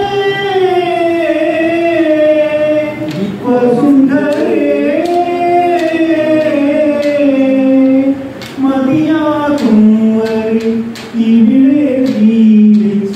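A man singing a Malayalam song unaccompanied into a handheld microphone, holding long, wavering notes, with a few short clicks over the singing.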